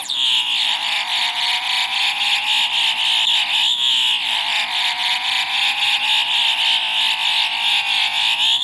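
Circuit-bent Elmo doll's sound chip putting out a steady, rapidly pulsing electronic buzz. Its pitch dips and recovers briefly about halfway through.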